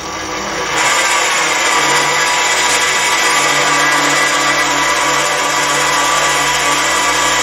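7x14 mini lathe with a brushless DC motor running with its tumbler gears engaged, the gear train driving the lead screw; a steady mechanical running sound. It gets louder about a second in, as the speed knob is turned up.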